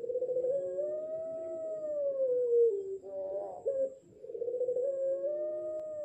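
Young ring-necked dove (puter pelung) cooing in long, drawn-out, howl-like notes: each call opens with a quavering stutter and swells into a smooth, arching note. Two long calls with a short one between them, from a six-month-old bird still learning its coo.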